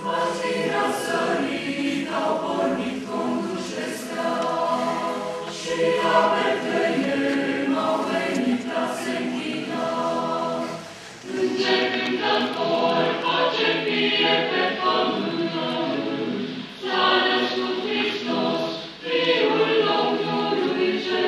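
Mixed choir singing a Christmas carol in parts, in sustained phrases with two short breaks, about eleven and nineteen seconds in.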